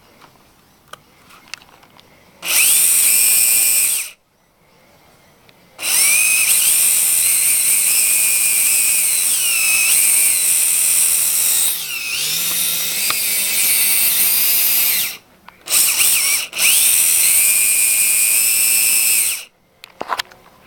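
Small electric motors and gears of a LEGO model car whining, running in spurts: a short run of about a second and a half, then a long run of about nine seconds whose pitch dips and recovers several times, then two more short runs near the end.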